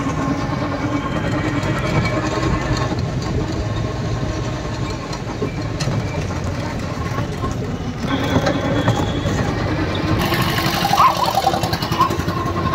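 Road traffic: vehicle engines running steadily with continuous street noise.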